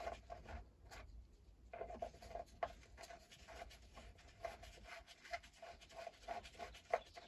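Faint scratching and small clicks of a screwdriver bit working at screws in the hedge trimmer's housing, with a stubborn screw that will not come out.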